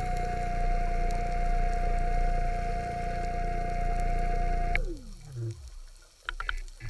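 Underwater scooter (diver propulsion vehicle) motor whining steadily at one pitch, then cutting out nearly five seconds in and spinning down in a quickly falling whine. A few faint ticks follow near the end.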